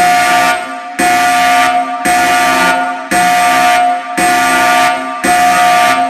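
Emergency alert system alarm: a harsh, buzzing horn-like tone that starts abruptly and repeats about once a second, each blast fading before the next.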